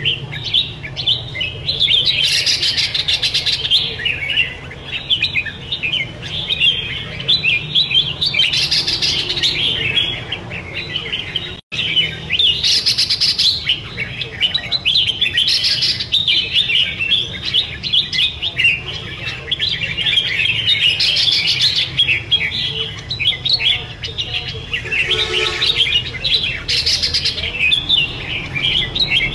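Red-whiskered bulbuls (chào mào) singing in rapid, overlapping runs of chirps and warbles, two caged birds in a competitive song duel. A momentary break in the sound comes just before the middle.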